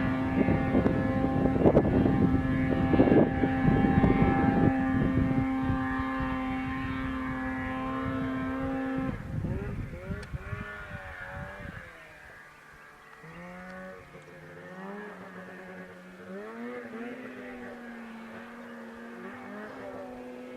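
Snowmobile engine held at high, steady revs for about nine seconds. It then turns fainter and revs up and down, its pitch rising and falling, until the end.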